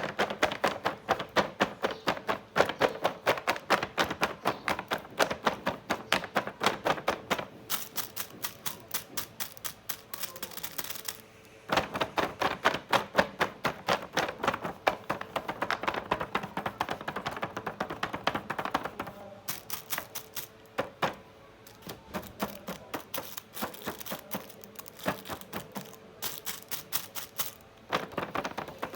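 Rapid tapping and clicking from handling a toy makeup set and its plastic packaging, several sharp clicks a second, with a brief pause about eleven seconds in.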